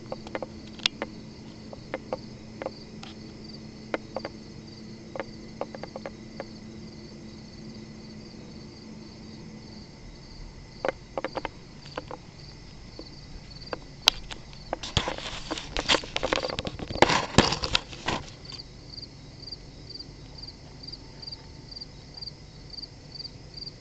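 Crickets chirping steadily, an even high chirp repeating two to three times a second. Scattered sharp clicks run through it, with a louder, dense run of clicks and crackles about two-thirds of the way through. A low steady hum stops about halfway.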